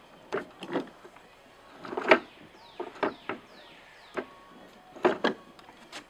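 Plastic toy shopping cart pushed over wooden deck boards, its hard plastic wheels and frame clattering in a series of uneven knocks, loudest about two seconds in.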